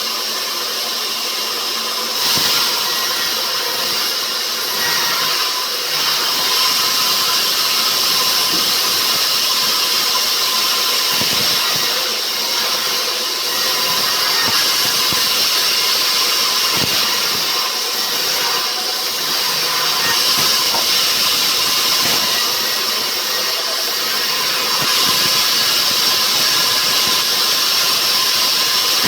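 Rubberwood sawmill running at full power: a steady, loud mechanical hiss and whine from the saw, with a few short knocks along the way.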